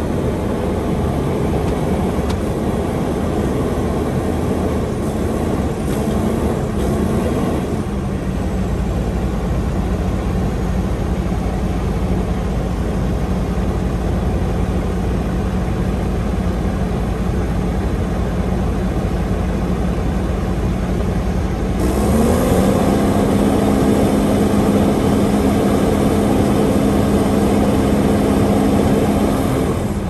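Diesel engine of a Wirtgen Vision 5100-2 tracked asphalt paver running steadily at idle, then revved up to a higher, louder steady speed about two-thirds of the way through. It holds there for several seconds and drops back to idle near the end.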